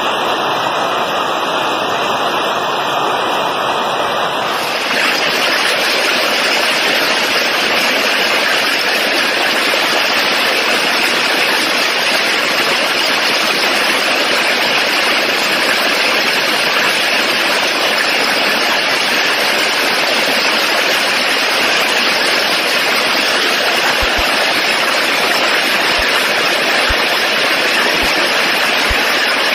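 Heavy hail and rain pelting the ground, a dense, steady hiss of impacts that grows a little louder and fuller about five seconds in.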